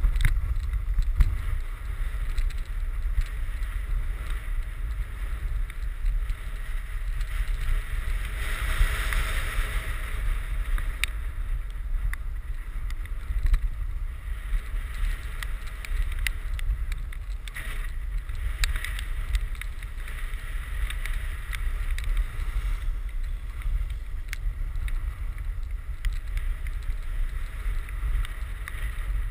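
Wind buffeting the microphone in a steady low rumble, over the hiss of a snowboard sliding and carving on packed snow; the hiss swells about nine seconds in.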